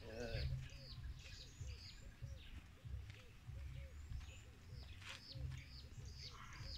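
Outdoor birdsong: several birds chirping with short high falling notes, over a steady series of short low arched calls repeating about three or four times a second. A fluctuating low rumble runs underneath.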